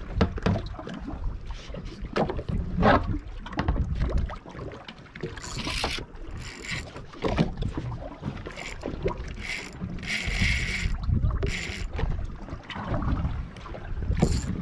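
Small boat at sea: a steady low rumble of wind and water on the microphone, broken by several short hissing splashes.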